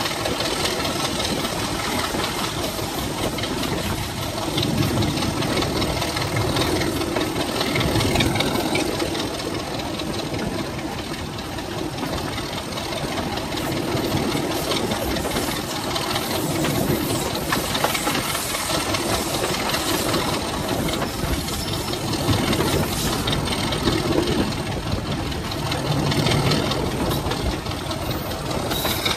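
Class 33 diesel-electric locomotive's Sulzer eight-cylinder engine running steadily under way, with a continuous rush of wind and running noise from the moving train. The sound swells slightly a few seconds in and eases back a little before the middle.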